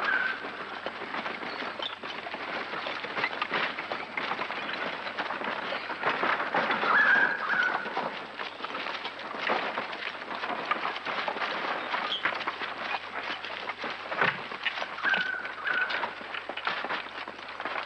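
A bullock team hauling a wooden dray: a steady, busy clatter of hooves and the cart rattling over rough ground, with a few short high squeaks now and then.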